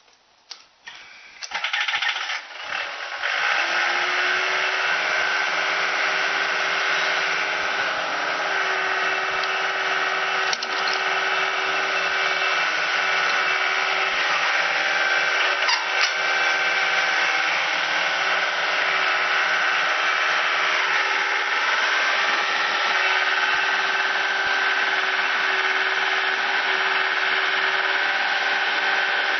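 A motor-driven machine starts up about two seconds in and then runs steadily at constant speed with an even whine.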